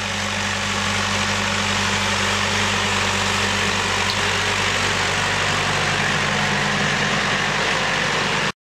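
Tractor engine running steadily while pulling a trailed cabbage harvester, with the noise of the harvester's machinery over it. The sound cuts off suddenly near the end.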